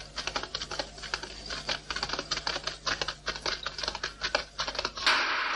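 Flatbed film editing table running footage: a fast, irregular clatter of crisp clicks over a steady motor hum. A louder rushing noise comes in near the end.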